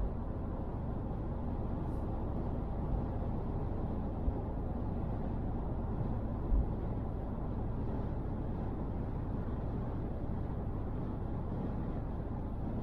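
Steady road and tyre noise of a car cruising at motorway speed, heard from inside the cabin, with one brief low bump a little past the middle.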